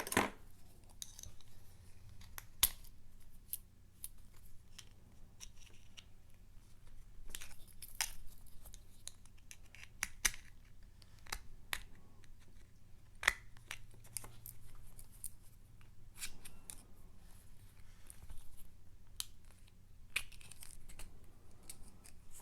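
Small metallic clicks, ticks and short scrapes at an irregular pace from a Mul-T-Lock MT5+ dimple lock cylinder being handled and worked with tools, with a sharper click about two and a half seconds in and another past halfway.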